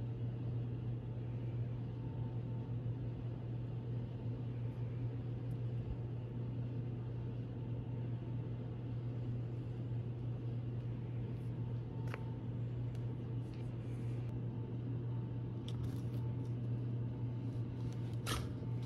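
A steady, low machine hum with no change in pitch or level, with a few faint ticks and one sharper tick near the end.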